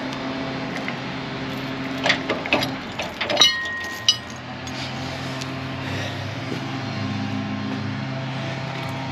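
Metal clinks and taps of hand tools and hardware working on a trailer's A-frame jack mount, with one ringing clink about three and a half seconds in and a sharp click just after. A steady low hum runs underneath.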